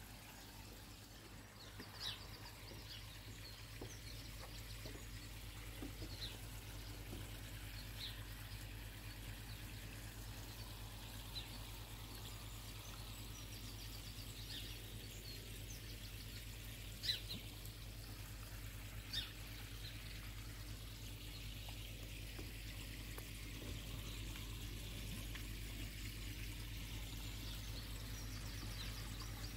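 Water pouring and trickling steadily into a koi pond, over a steady low hum, with a few brief high chirps now and then.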